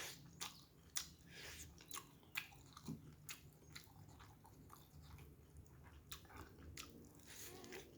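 A person chewing and eating with the mouth close to the microphone: faint, irregular clicks and smacks.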